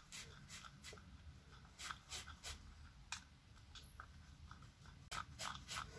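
Faint, irregular clicks and scrapes of a mixing stick scraping the last of the resin out of a small pot.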